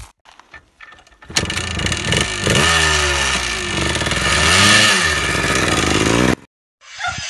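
Yamaha trail motorcycle engine catching suddenly about a second in and revving up and down several times, then cutting off abruptly near the end.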